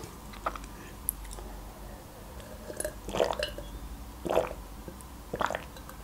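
Gulps of water swallowed from a glass close to the microphone: three swallows about a second apart in the second half, after a few faint small clicks.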